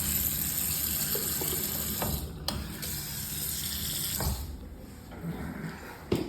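Water running from a faucet into a sink in a steady rush. It breaks off briefly about two and a half seconds in, then stops a little after four seconds in, with a sharp click near the end.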